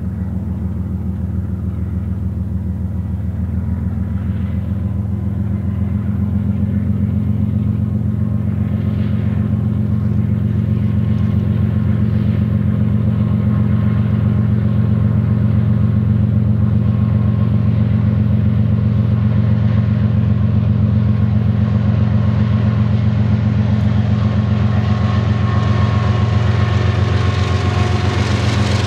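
GE ES44DC diesel-electric locomotive running as it approaches with a coil-car freight train: a steady low engine rumble that grows slowly louder. Near the end the clatter and rolling of the flatcars' wheels on the rails builds as the train passes.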